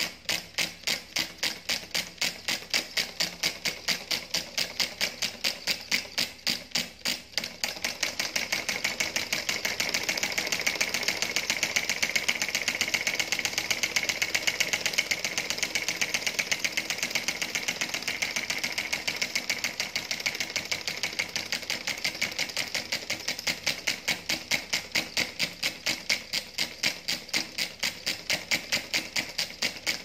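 Homemade solenoid engine running: each pull of the coil on the syringe-plunger piston, switched by the spring contact at the flywheel, gives a sharp click, several a second in an even rhythm. The clicks quicken and grow louder around the middle, then ease back a little.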